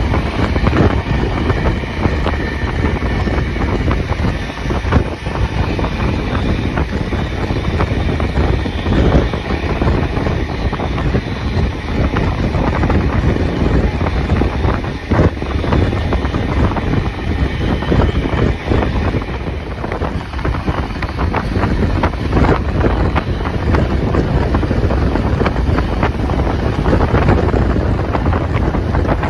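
Strong wind buffeting the microphone over the steady rumble of a moving vehicle, with many small knocks and rattles throughout.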